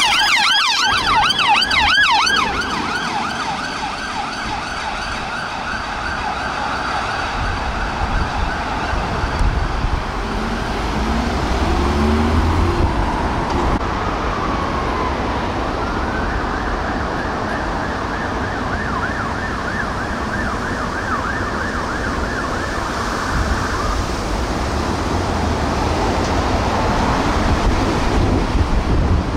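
Emergency-vehicle sirens over road traffic. A close, fast-warbling yelp siren fades out in the first couple of seconds as the blue-lit police car passes. A fainter fast-warbling siren from the approaching emergency vehicles sounds for several seconds from about the middle.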